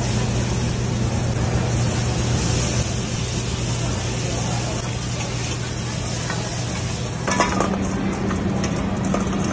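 Raw shrimp sizzling on a hot flat-top griddle, a steady hiss over a constant low hum. About seven seconds in it gives way to french fries being tipped from a wire fryer basket into a metal bowl, with scattered clicks and clatter.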